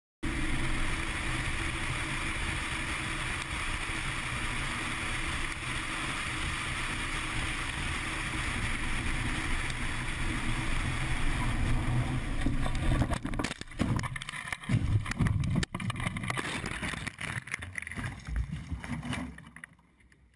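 A car driving along a road with a steady rush of driving noise. About two-thirds of the way in, a run of loud irregular bangs and crashes begins as the car leaves the road and tumbles through brush, then it fades out near the end.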